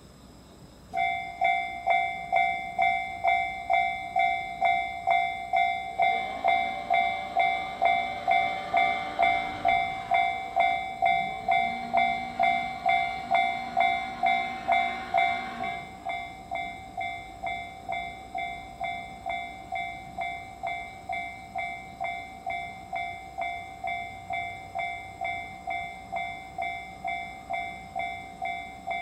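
Railroad crossing warning bell starts ringing about a second in, a steady ding at about two strikes a second. From about 6 to 16 seconds in, a rushing noise with a low hum runs under it. After that the bell keeps ringing, a little quieter.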